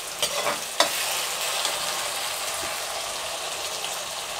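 A metal slotted spoon scrapes and knocks against a metal kadai a few times in the first second, then onion, tomato and green peas keep sizzling steadily in hot oil.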